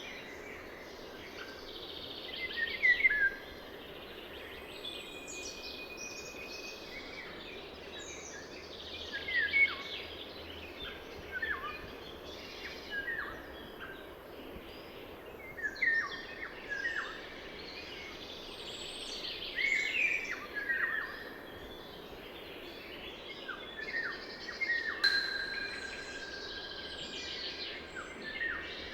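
Wild songbirds singing short, repeated phrases every few seconds over the steady rush of a river.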